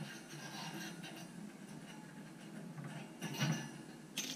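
Small metal fishing hooks clicking and ticking against the wire bars of an oven rack as they are unhooked and lifted off by hand, with a couple of sharper clicks near the end.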